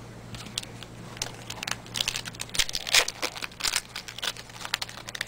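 Trading-card pack wrappers crinkling and tearing as hockey card packs are ripped open, in irregular bursts of rustling.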